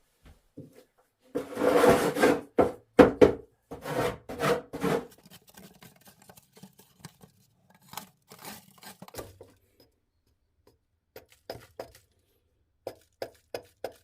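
Handling noises at close range: a rustling scrape about a second and a half in, followed by a series of sharp knocks and clinks, irregularly spaced.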